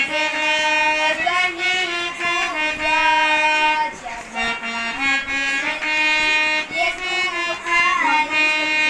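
Boy singing while playing a harmonium: held reedy notes under a singing voice that slides between pitches, with a brief pause between phrases about four seconds in.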